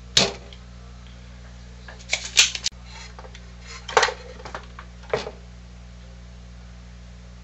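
Spring-loaded desoldering pump (solder sucker) snapping as it fires just after the start, then a run of sharp clicks and knocks about two seconds in and two more near four and five seconds as the pump and soldering iron are worked on the circuit board. A low steady hum sits underneath.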